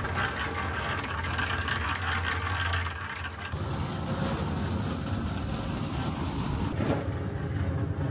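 Electric drum concrete mixer running, a steady motor hum with the gritty rattle of mix tumbling in the turning drum. About three and a half seconds in the sound changes abruptly to a rougher, lower mechanical rumble.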